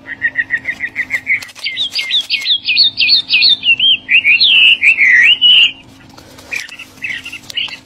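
A songbird singing: a quick run of short rising chirps, about six a second, that climbs higher, then a few looping whistled notes. Sparser, fainter chirps follow near the end.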